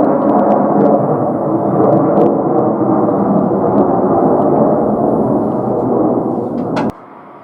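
Loud, steady jet engine noise from an Airbus A321. It cuts off abruptly near the end, leaving a much quieter background rumble.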